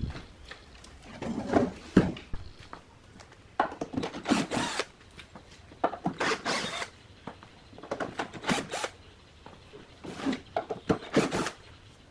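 Repeated scraping or rubbing strokes, each lasting about a second, about one every two seconds.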